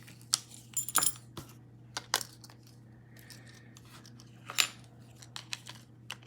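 Small metal multi-tool clicking and knocking against a small 3D-printed plastic container as it is pushed in and handled: a handful of sharp taps, two close together about a second in and another near the middle.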